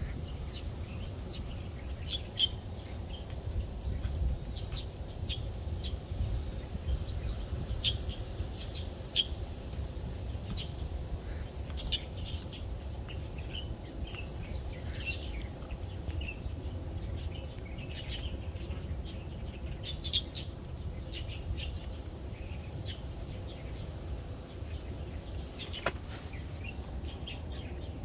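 Small birds chirping again and again in short high notes over a low steady rumble, with a few sharp clicks here and there.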